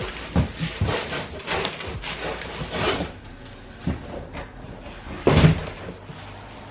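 Packaging being handled while a gift is opened: rustling and light knocks, with a louder thump about five seconds in.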